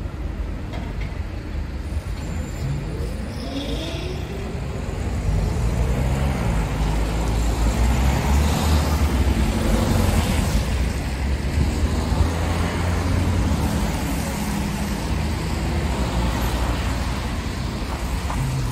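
Road traffic on a wet city avenue: cars driving past close by on wet asphalt, with a steady low rumble that grows louder in the middle and eases off toward the end.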